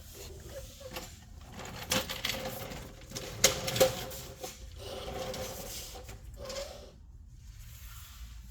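Rustling and handling noise with a few sharp clicks and knocks, the loudest about three and a half seconds in.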